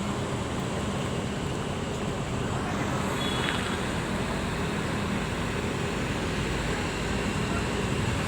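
Steady rumble of an idling diesel coach engine mixed with traffic noise.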